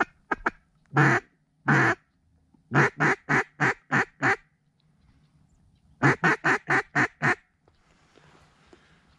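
Duck call blown close by in hen-mallard quacks: a few short quacks, two longer drawn-out quacks, then two quick runs of about six quacks each at roughly four a second, calling to a flock that is coming in to the decoys.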